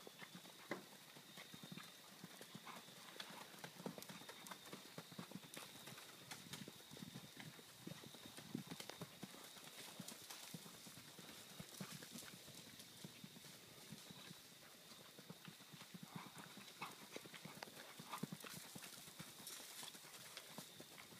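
Paso Fino gelding's hoofbeats on sand arena footing: quick, even footfalls in a steady stream, faint and soft. A thin, steady high whine runs underneath.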